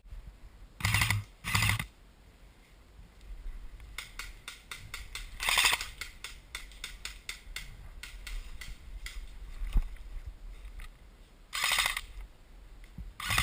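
Rapid mechanical clicking for several seconds, with a few short, louder bursts before and after it.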